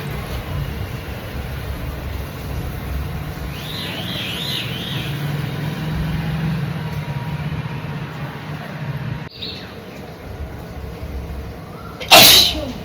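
A person sneezing once, loud and sudden, near the end, over a steady low engine-like hum.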